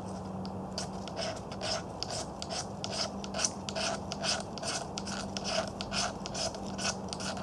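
Ferrocerium fire-striker rod being scraped repeatedly in short, quick strokes, about three a second, throwing sparks onto birch bark tinder to light a fire.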